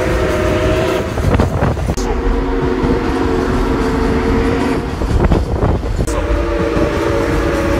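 Steam locomotive's chime whistle sounding long blasts of a several-note chord. One blast ends about a second in, another runs from about two to five seconds, and a third starts at about six seconds. Under it is the steady rumble and clatter of the train rolling on the rails.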